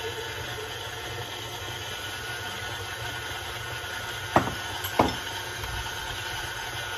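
KitchenAid stand mixer running steadily, its beater working flour into a thick cookie dough in a glass bowl. Two sharp knocks sound about four and five seconds in.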